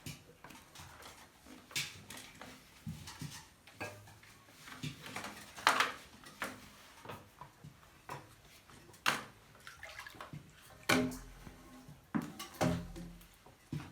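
Floodwater in a flooded cellar splashing and sloshing in irregular bursts, with several sharper splashes or knocks every second or two.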